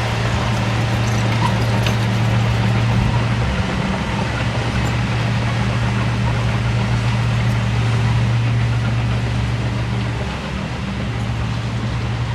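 Diesel engine of earthmoving equipment running at a steady pitch, a low constant drone that eases slightly about ten seconds in.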